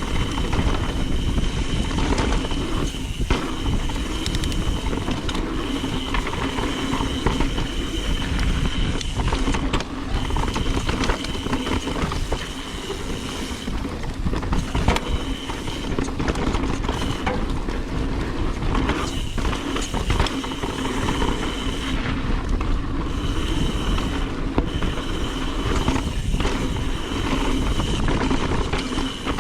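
A 2020 Trek Remedy 9.8 mountain bike descending dirt singletrack, heard from a GoPro on the bike or rider: continuous wind and tyre noise with chassis rattle and knocks over bumps. A high freehub buzz comes and goes as the rider coasts and pedals.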